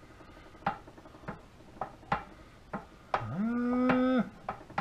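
Light clicks and knocks, roughly one every half second, as a newly installed universal joint in a 2007 Ford F-150 driveshaft yoke is worked back and forth by hand to feel whether it is still tight. About three seconds in, a drawn-out low hum rises and holds for about a second, the loudest sound here.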